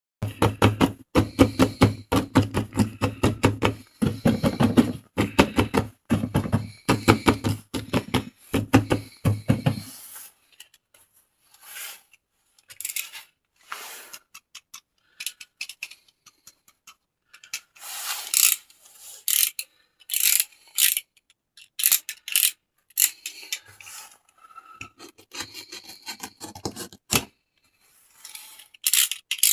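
Toys and their packaging being handled for unboxing, with rubbing, scraping and crinkling sounds. For the first ten seconds there is a loud, fast rattling with a low hum underneath, which cuts off suddenly. Scattered separate scrapes and rubs follow.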